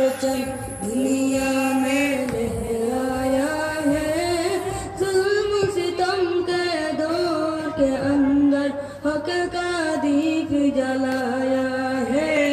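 Boys' voices singing a Bengali Islamic devotional song (gojol) together into microphones, heard through a public-address system; one melody with long held notes and slow melodic turns.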